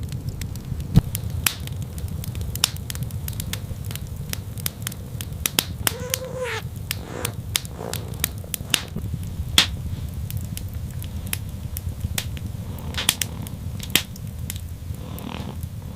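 Wood fire crackling with many sharp, irregular pops over a steady low rumble. A short animal cry that rises and falls comes about six seconds in, and a fainter one comes near the end.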